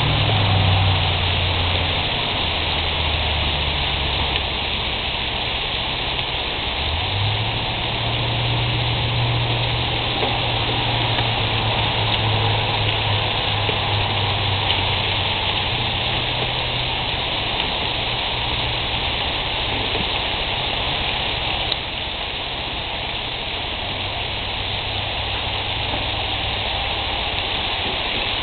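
Bacon-wrapped quail breasts sizzling on a grill: a steady, rain-like hiss, with a low hum underneath.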